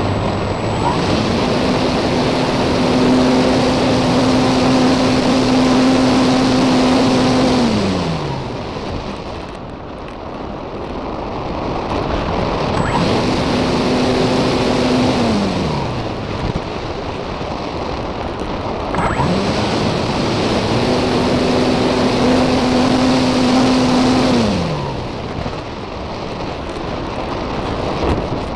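Parkzone Radian motor glider's electric motor and propeller winding up to a steady whine three times, each run ending with the pitch sliding down as the motor shuts off; the first and last runs last about six seconds, the middle one about three. Wind rushes over the on-board camera's microphone throughout.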